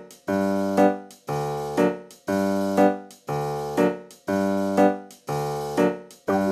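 Background music: keyboard chords struck in a steady repeating pattern, about one a second, each fading before the next.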